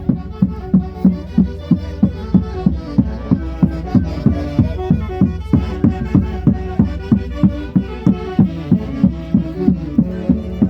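Andean folk orchestra playing lively dance music over a steady, fast drum beat of about three to four beats a second.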